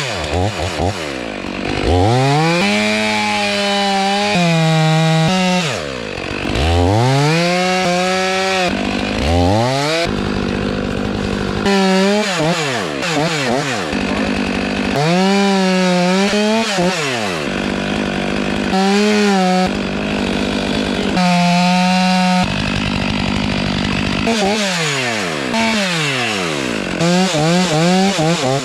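Gasoline chainsaw revved to full throttle over and over in bursts of one to a few seconds, the engine pitch climbing, holding, then falling back toward idle between bursts, sagging a little at times as it cuts into a tree trunk.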